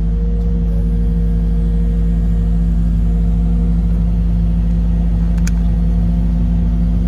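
Caterpillar 308 mini excavator's diesel engine running steadily, heard from inside the cab, as it lifts a strapped bundle of lumber. A single short click about five and a half seconds in.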